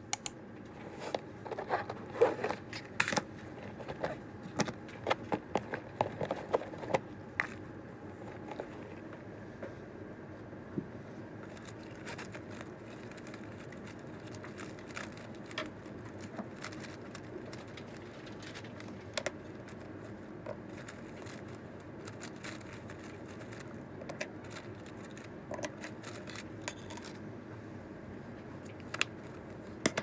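Things being unpacked and laid out on a desk: a quick run of clicks, knocks and rustles as a bag, a plush pouch, books and pens are handled, busiest in the first several seconds and then scattered taps over steady room noise.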